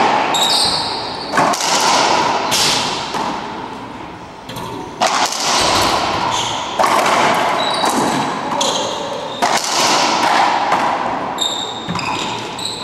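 Racquetball rally: sharp cracks of the ball off racquets and the court walls every second or two, each ringing in the enclosed court, with short high sneaker squeaks on the hardwood floor between shots.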